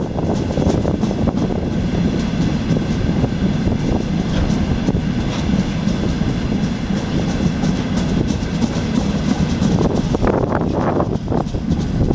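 Covered hopper wagons of a freight train rolling past on steel rails, a steady low rumble with many quick wheel clicks. Near the end the last wagon goes by and the rumble gives way to gusts of wind on the microphone.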